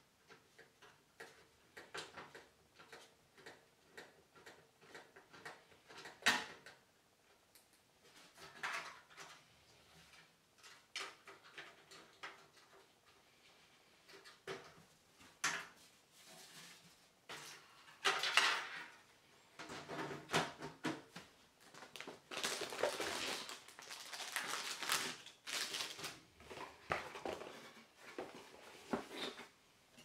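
Clicks, taps and knocks of parts being handled and fitted inside a computer case, with a sharp knock about six seconds in and a few seconds of denser, continuous handling noise about three-quarters through.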